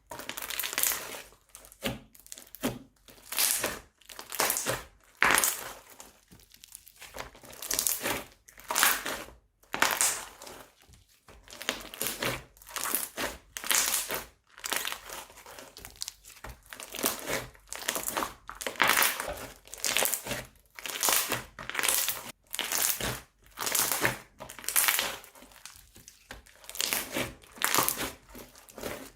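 Plastic piping bags being squeezed and handled, crinkling in quick, irregular bursts.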